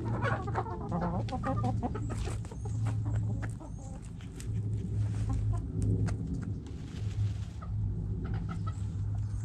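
Backyard hens clucking, mostly in the first couple of seconds, while they scratch and peck in loose dirt, with many small scratching and pecking clicks. A low steady hum runs underneath.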